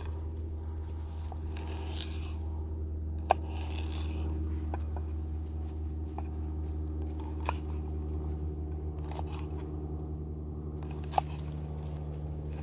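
Small knife slicing a green bell pepper on a wooden cutting board: soft crisp cutting sounds with a few sharp taps of the blade hitting the board, over a steady low hum.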